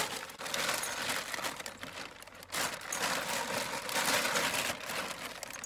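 Thin plastic bag rustling and crinkling as it is handled, in irregular stretches with a short pause about two and a half seconds in.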